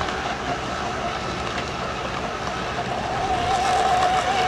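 Fast electric radio-controlled racing boats running at speed: a steady motor and propeller whine over a hiss of spray, growing louder about three seconds in.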